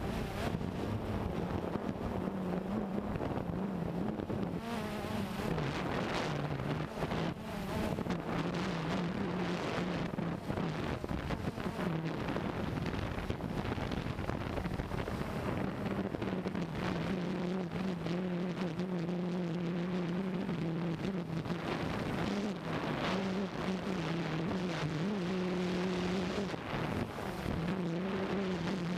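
Cheerson CX-20 quadcopter's propellers humming, the pitch stepping up and down as the throttle changes, with wind noise on the microphone.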